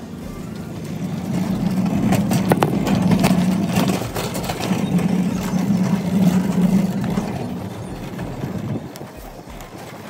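Shopping cart rolling over asphalt: a steady rumble from its wheels with the wire basket rattling, which swells about a second in and dies away near the end.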